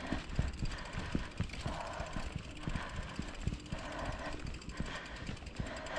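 Bicycle rolling slowly over a paved path, with irregular knocks and rattles from the bike and a soft hiss coming and going about once a second.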